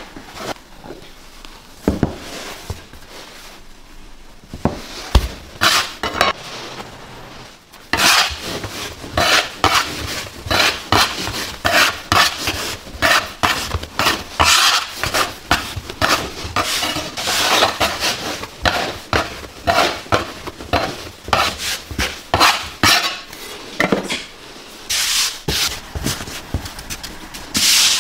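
Kitchen utensils and dishes clattering and scraping in quick, irregular strokes. The strokes are sparse at first and come thick and fast from about eight seconds in.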